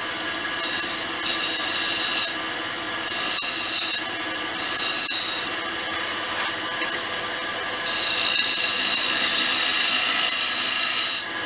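Spindle gouge shear-scraping a spinning sycamore blank on a wood lathe: a few short hissing cuts in the first five seconds, then one longer pass of about three seconds, over a steady machine hum.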